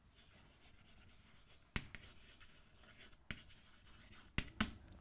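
Chalk writing on a blackboard: faint scratching strokes, with about four sharp taps as the chalk strikes the board.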